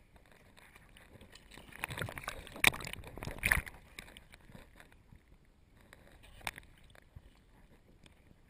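Sea water sloshing and splashing against a camera held at the surface by a swimmer, with a few sharp splashes, the loudest about a third of the way in.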